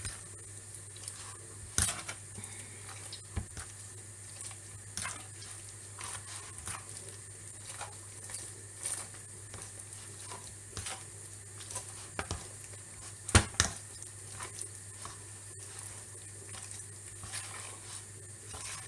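Spoon and hand mixing wet raw meatball mixture in a plastic tub: soft squelching with irregular clicks and knocks of the spoon against the tub, the loudest about thirteen seconds in, over a low steady hum.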